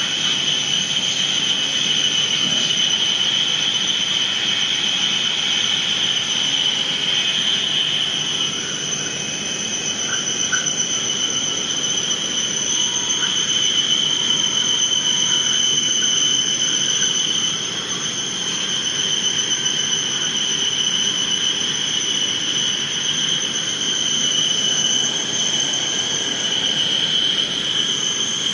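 CNC turning centre machining 1.4305 stainless steel: a steady high-pitched whine with a higher overtone over the noise of the cut, easing briefly twice.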